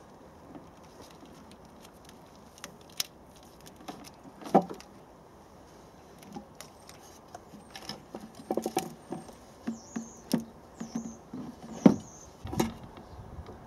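Scattered clicks, knocks and rattles of an engine's intake manifold being worked loose by hand and lifted off, busiest in the second half, with a sharp knock about a third of the way in and another near the end.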